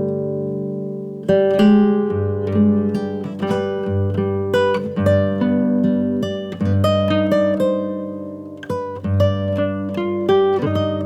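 Background music of an acoustic guitar playing plucked notes and chords; a held chord dies away before the picking resumes about a second in.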